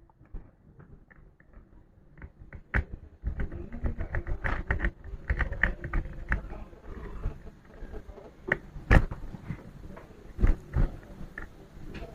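Hand tools scratching and tapping on an amplifier circuit board as damaged copper tracks are worked on: irregular small clicks and scrapes, with a few louder knocks near the end.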